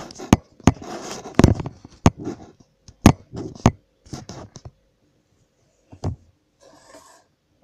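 Handling noise close to the microphone as the camera is moved and set down on a table: a dense run of sharp knocks, clicks and scrapes for the first four seconds or so. After that it goes quiet apart from a single click about six seconds in and a short hiss just before the end.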